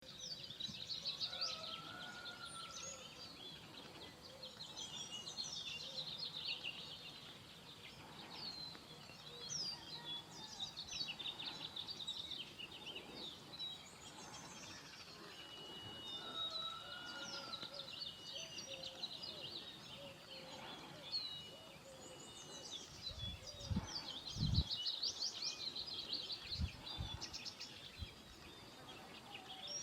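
Songbirds singing and chirping without a break, many short chirps and trills overlapping, with a lower whistled phrase heard twice. A few brief low thumps come near the end.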